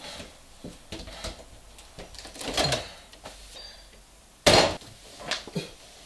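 Household refrigerator door pulled open, with clattering and effortful grunts, and one loud, sharp knock about four and a half seconds in.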